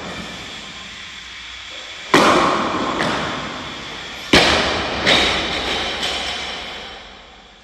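A loud thud about two seconds in. Then a loaded barbell with bumper plates, dropped from overhead, bangs onto a wooden lifting platform and bounces once with a second smaller bang. Each impact echoes through the hall.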